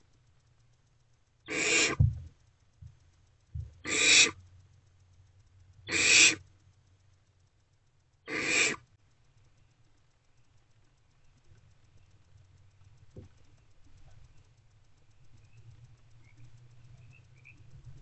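Barn owlets giving four short rasping hiss calls (the owlets' snore call), about two seconds apart, in the first half. After that only a faint low hum remains.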